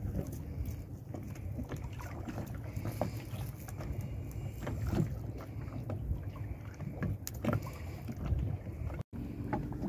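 Wind buffeting the microphone over water noise aboard a small open skiff, with a few light knocks scattered through.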